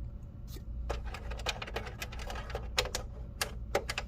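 Quick, irregular clicks and taps of plastic parts and tools being handled while a PlayStation 5 console is taken apart, over a steady low hum.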